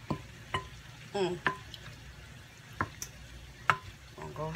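Wooden spoon stirring pasta salad in a glass mixing bowl, with sharp irregular knocks as the spoon hits the side of the bowl, about seven in all.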